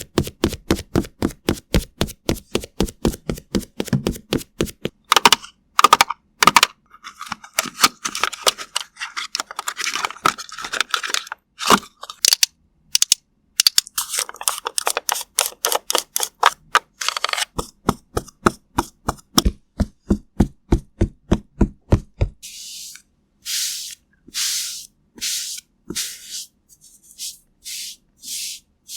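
ASMR makeup sound effects: a fast, even run of crisp taps or clicks, about five a second. Then a mix of clicks and scratchy rubbing, and in the last several seconds separate brushing swishes, about one and a half a second.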